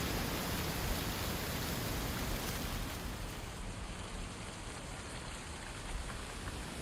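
Strong autumn wind blowing steadily, with low rumble from gusts on the microphone; it eases a little about three seconds in.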